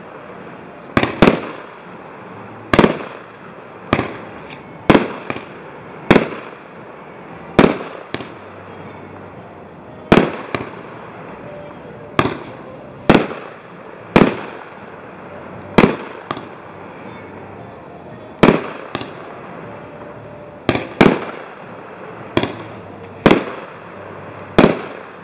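Multi-shot firework cake (JW6010) firing aerial shells in sequence: about twenty sharp bangs, roughly one a second and sometimes two close together, each trailing off briefly.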